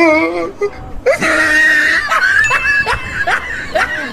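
A group of young men laughing and shrieking, with repeated short rising whoops and one wavering cry at the start.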